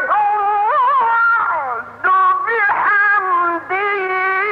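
Male Quran reciter's voice in the ornamented mujawwad style, drawing out long, wavering, melismatic notes, with a short pause for breath about two seconds in.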